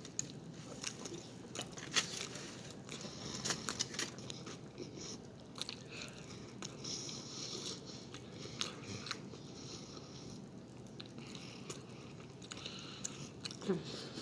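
A person chewing mouthfuls of burrito close to the microphone: wet smacks and clicks of the mouth, with a brief hum near the end.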